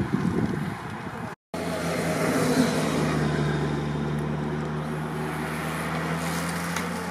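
Wind rumbling on the microphone for about a second, then a short dropout, after which a motor vehicle's engine runs with a steady hum over road and wind noise.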